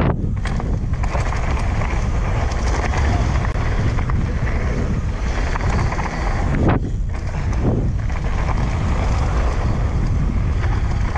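Steady, loud wind noise buffeting the microphone of a mountain bike rider descending a dirt trail at speed, over a low rumble from the bike.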